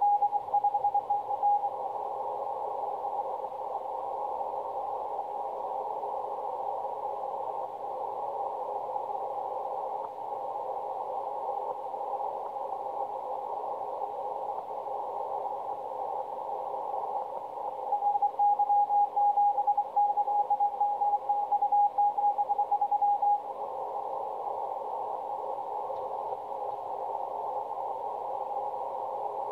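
Yaesu HF transceiver receiving a Morse code (CW) signal on the 20-metre band: a single high tone keyed on and off for the first second or two and again for about five seconds past the middle, over a constant hiss of filtered band noise.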